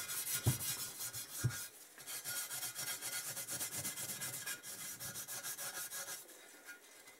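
A green Scotch-Brite abrasive pad scrubbed in quick back-and-forth strokes over a cast-aluminium motorcycle engine sump, a fast scratchy rubbing, several strokes a second, as the surface is keyed for paint. Two dull knocks come in the first second and a half, and the scrubbing eases off near the end.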